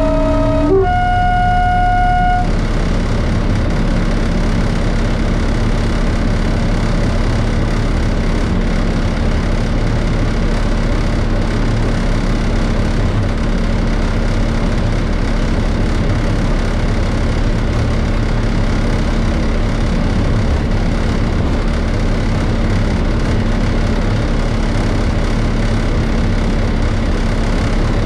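Class 33 diesel locomotive's two-tone horn ending on a higher note held for about a second and a half near the start, then the locomotive's Sulzer eight-cylinder diesel engine running steadily, heard from inside the cab.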